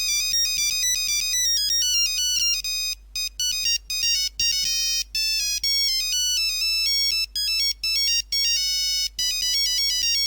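Nokia mobile phone ringtone playing: a quick melody of short, bright electronic notes stepping up and down, broken by brief pauses between phrases in the second half.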